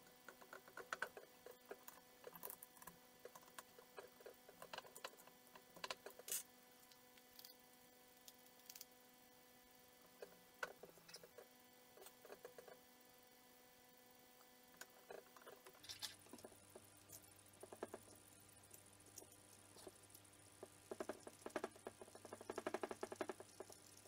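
Near silence with faint scattered clicks and taps of an Allen key and metal jigsaw parts being handled, and a quick run of ticks near the end. A faint steady hum joins about two-thirds of the way through.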